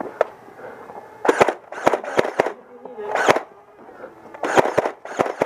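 Nerf foam dart blasters firing in several short bursts of rapid shots, each burst a quick run of sharp cracks.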